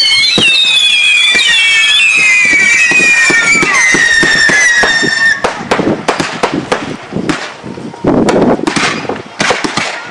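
Fireworks: several whistling fireworks scream at once, each slowly falling in pitch, for about five seconds. Then a rapid crackle of many sharp pops and bangs takes over.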